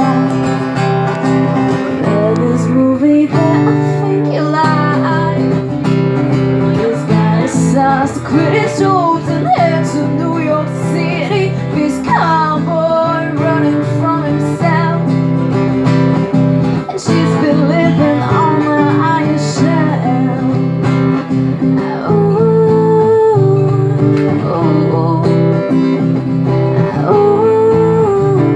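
A woman singing a song while playing an acoustic guitar.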